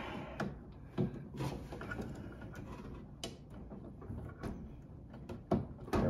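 Scattered clicks and knocks of hands working a crimped spade connector onto a switch terminal inside a space heater's housing, with the sharpest knock about five and a half seconds in.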